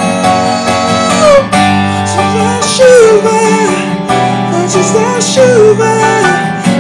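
A man singing a gliding melody into a microphone over acoustic guitar accompaniment.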